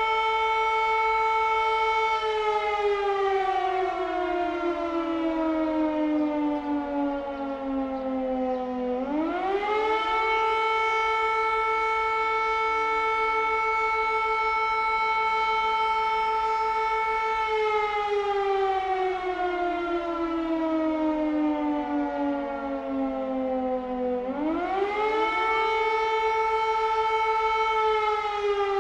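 Air raid siren wailing: a steady high tone that slowly falls in pitch for about seven seconds, then rises quickly back up and holds again. The cycle runs twice, and a third fall starts near the end.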